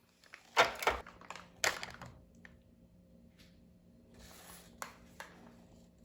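Household items being handled and set down: a quick run of sharp knocks and clatters, a soft rustle and two light clicks, over a steady low hum.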